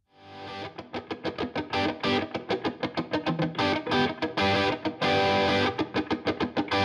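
Instrumental background music with guitar and a quick, steady rhythm, fading in at the start.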